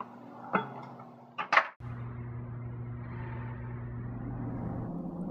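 Plastic clicks and two sharp snaps as the BMW E90 gear selector's trim and lever parts are twisted and pulled free, then a steady low hum.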